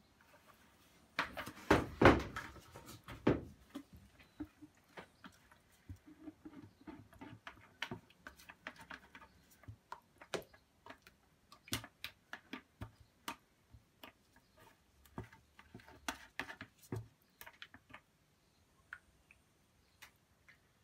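Handling noise from a plastic bucket being tipped and scraped out with a spatula: scattered clicks, knocks and scrapes, with a louder cluster of knocking a second or so in.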